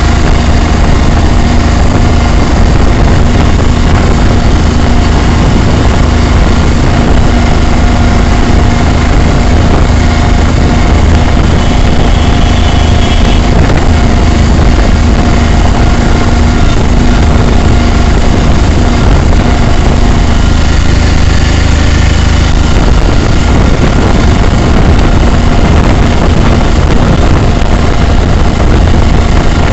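Engine and road noise of a moving vehicle, heard from on board, running steadily at an even pitch.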